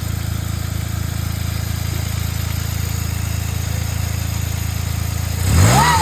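Turbocharged engine idling with an even pulse, then revved briefly near the end, a whine rising and falling with the rev. The owner suspects the turbocharger of making an abnormal noise.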